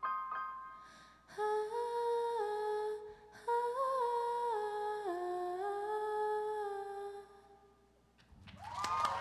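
A live band's song closing on a slow melody of long held notes, each stepping to a new pitch, then fading out. Applause and cheering break out near the end.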